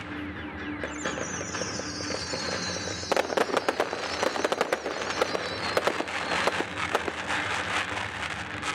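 Fireworks display: a high whistle slowly falling in pitch from about a second in, then a rapid run of bangs and crackles from about three seconds in.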